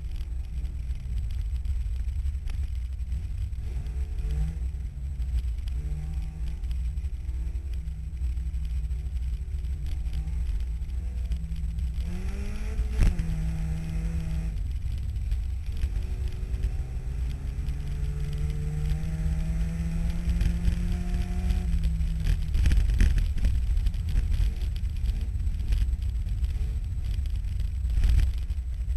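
Race car engine heard from inside its cabin under hard acceleration, its pitch climbing, holding and dropping again as it runs up through the gears, over a steady low rumble. A sharp climb comes about halfway, then a long slow rise that falls away near the end, followed by scattered knocks.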